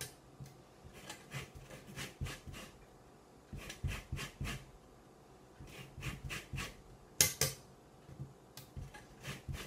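Orange peel being grated on a metal rasp zester over a glass mixing bowl: short scraping strokes in quick runs with brief pauses, with the zester knocking against the bowl.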